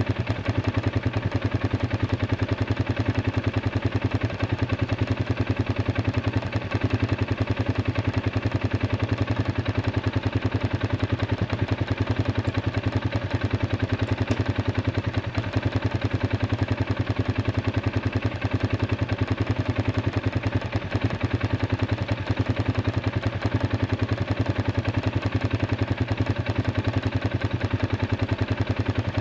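Arctic Cat 500 ATV engine idling steadily, running again after its dead battery was dealt with.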